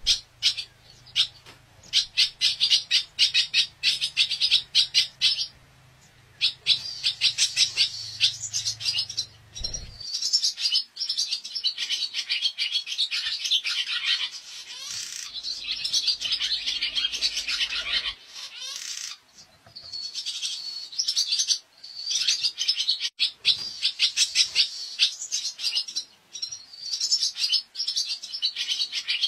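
Barn swallow twittering: fast runs of short, high chirps in bursts of a few seconds with brief pauses between them.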